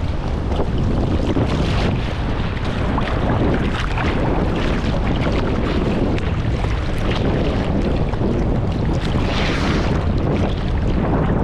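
Choppy sea water sloshing and splashing around a camera at the waterline as a swimmer strokes through the waves, with a steady low rumble of wind and water on the microphone. There is a brighter splash about nine seconds in.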